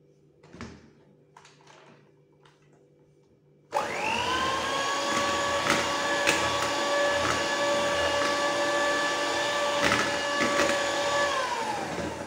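Electric hand mixer switched on about four seconds in, its motor whining up quickly to a steady pitch as its wire beaters whip cake batter in a plastic bowl, with a few sharp clicks along the way. Near the end the motor is switched off and its pitch sinks as it winds down. Before it starts, a few faint knocks.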